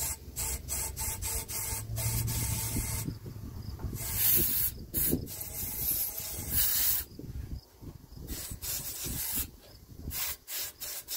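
Compressed air from a blow gun hissing in several short blasts, the strongest about four seconds in, with tool handling between. The air is being blown through the fuel hose into the garden tractor carburetor's float bowl to free the float, as gas had been spewing out of the carburetor.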